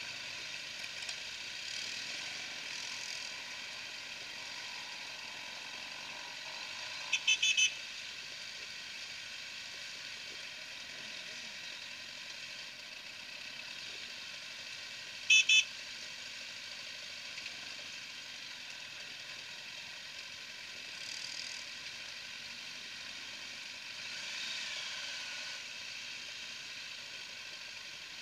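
Motorcycles running at low speed in a large group, with horn toots cutting through: a quick burst of about four short toots about seven seconds in, and two louder short toots about fifteen seconds in.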